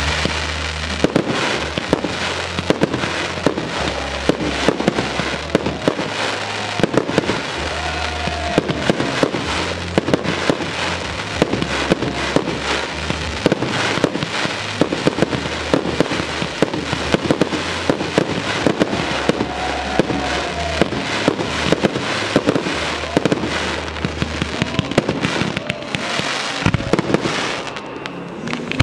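Fireworks display going off in quick succession: a dense, continuous run of sharp pops, cracks and bangs from aerial bursts and ground fountains, with music and a bass line underneath.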